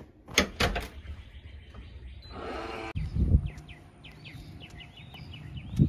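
A few sharp knocks and clatters, then birds chirping in quick, short repeated calls in the second half, with a couple of low thumps.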